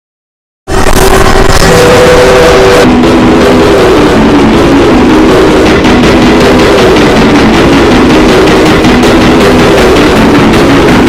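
Emergency alert alarm, very loud and harsh: a dense noise with tones underneath that step between a few low pitches. It starts abruptly just under a second in.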